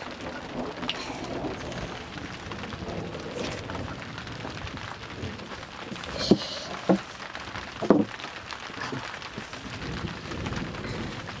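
Wood fire crackling steadily on an open hearth, with three short louder sounds about six to eight seconds in.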